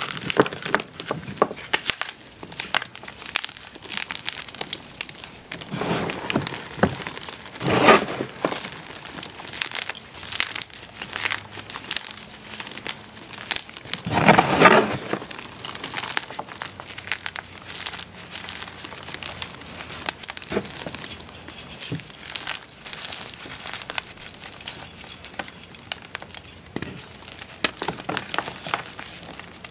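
Hands crushing and crumbling blocks of fresh and reformed gym chalk: continuous crunching and crackling of powdery chalk breaking apart. Two louder, longer crunches come a quarter of the way in and about halfway.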